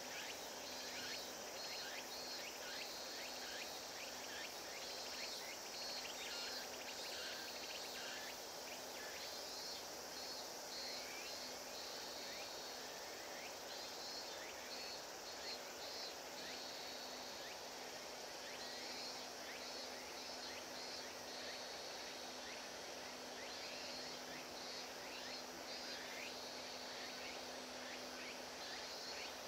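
Steady insect chorus: a continuous high buzz with repeated short pulsed trills, over a faint steady low hum.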